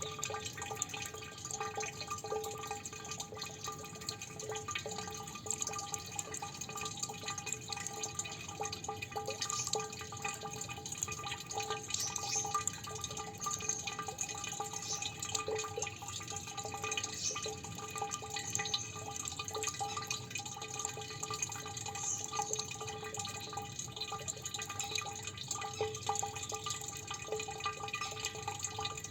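Water dripping continuously, many drops falling in quick, irregular succession.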